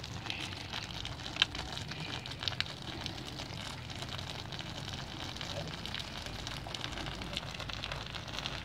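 Floppy Sprinkler overhead sprinklers spraying water that patters onto solar panels: a steady hiss with scattered sharp ticks, one louder tick about one and a half seconds in.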